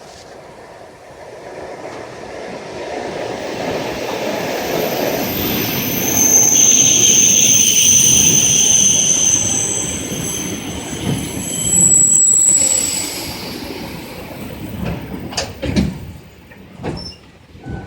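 ED4M electric multiple unit pulling in and braking to a stop. The rumble of the wheels grows louder, and high-pitched squealing holds for several seconds in the middle as the train slows. Near the end the rumble dies down with a few sharp knocks as it comes to a halt.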